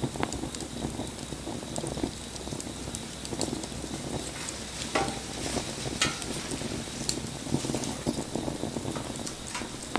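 Wood bonfire burning: a steady hiss with frequent crackles and sharp pops, two louder snaps about halfway through.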